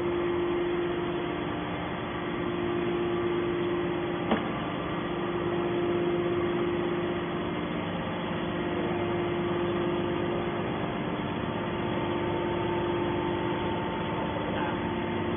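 Hydraulic can baler's power unit running with a steady hum, and a single sharp click about four seconds in.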